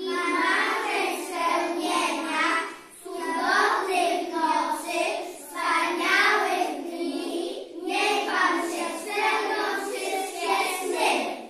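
A group of preschool children singing together, line after line with short pauses between phrases. The singing stops near the end.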